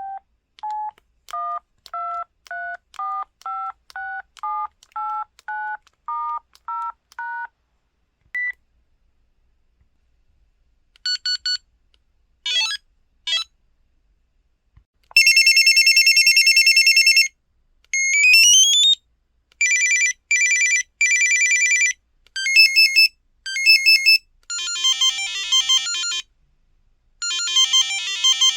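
Samsung Anycall SCH-X140 mobile phone playing its single-voice beep ringtones and effect sounds one after another: first a short melody of about a dozen stepping beeps, then separate effects with short gaps between them, including a loud steady buzzing tone, a quick rising sweep, and fast warbling trills near the end.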